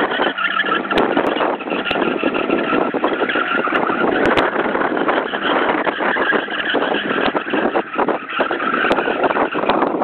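Ford Sierra spinning in circles on asphalt: tyres squealing in wheelspin over the engine held at high revs.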